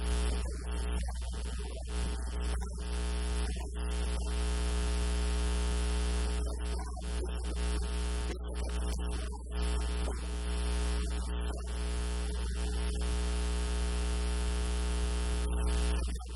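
Steady electrical mains hum with a buzz of many overtones and a hiss above it, the recording's hum loud enough to bury everything else.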